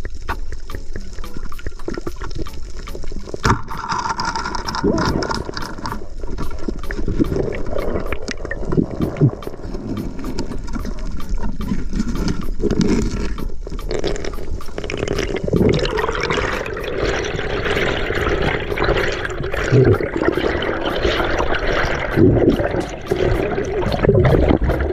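Water rushing and bubbling around a camera in the water, a continuous swirling wash with surges, and faint clicks about twice a second.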